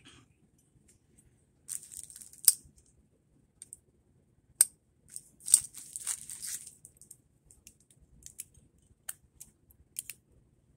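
Sharp metal clicks and short scrapes from a folding pliers multi-tool as a stiff blade is pried out of its handle, the loudest clicks about two and a half, four and a half and five and a half seconds in, with lighter ticks near the end.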